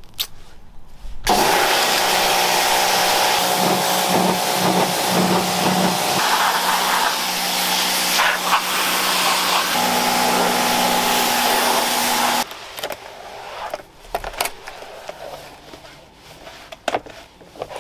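Pressure washer (jet wash) running, its pump humming under the loud, steady hiss of the water jet blasting a plastic car diffuser. It starts abruptly about a second in and cuts off about twelve seconds in.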